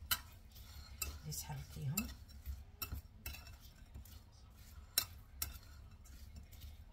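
A spoon stirring sliced onion, ground cumin and sweetener in a container, clinking sharply against its side now and then, with softer scraping between the clinks.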